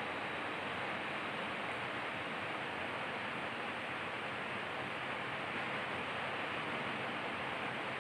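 Steady, even hiss of background noise, with no distinct knocks or events.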